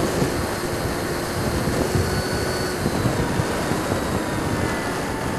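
Electric ducted fan of a Freewing Hawk RC jet running on landing approach: a thin whine of a few steady tones that shift slightly about halfway through, under heavy wind rush and buffeting on the onboard microphone.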